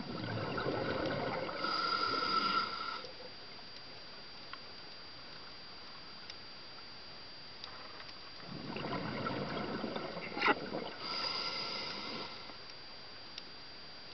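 A scuba diver breathing through a regulator underwater: two breaths about eight seconds apart, each a low bubbling rush followed by a higher, whistling hiss.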